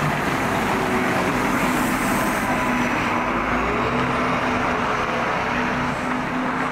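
A motor vehicle's engine running steadily, its pitch rising a little about halfway through.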